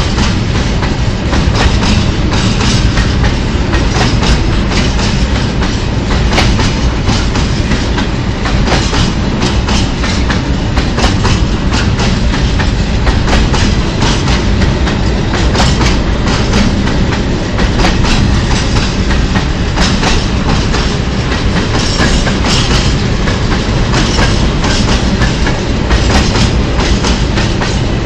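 Long freight train of open-top wagons rolling past close by. The wheels clatter over the rail joints in a steady stream of clicks over a continuous rumble.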